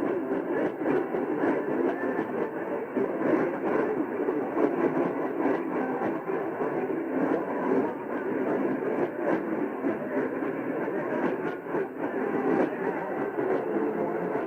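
AM radio reception full of static and crackle, cut off above the upper midrange, with muffled programme audio buried under the noise and no clear words.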